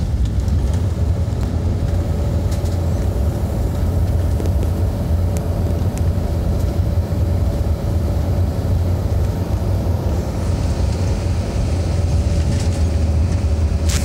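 Steady low rumble of a moving vehicle's engine and tyres on the road, heard from inside the vehicle, with a faint steady hum running through it from about two seconds in.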